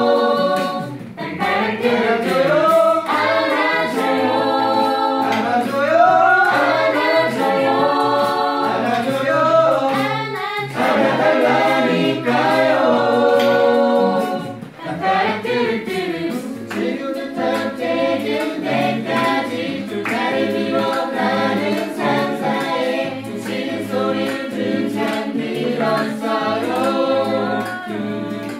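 Mixed choir of men and women singing a Korean pop song in several parts, with a brief break in the sound about halfway through.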